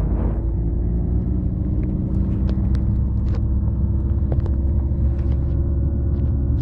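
Steady low rumble of a car's engine and tyres heard from inside the cabin while driving slowly, with a constant hum and a few light clicks.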